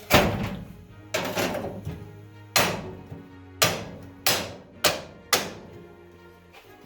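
Seven hammer blows at uneven spacing, the first the loudest, over background music.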